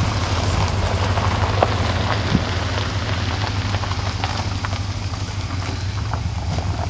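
Vehicles rolling slowly along a gravel drive: a steady crackling crunch of tyres on gravel over a low engine hum, with scattered small clicks of stones.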